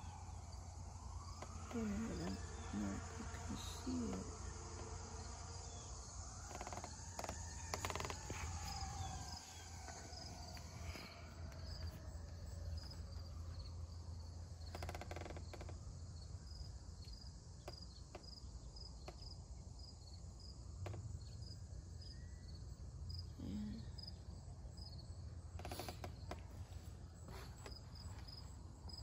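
A faint emergency-vehicle siren wailing, its pitch slowly rising and falling, dying away about halfway through. Insects chirp at a steady, high-pitched rhythm, most plainly in the second half, over a low steady rumble.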